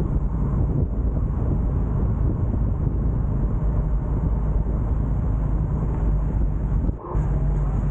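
Steady low rumble of wind on the microphone and road noise from travelling through light city traffic, with a brief drop in level about seven seconds in.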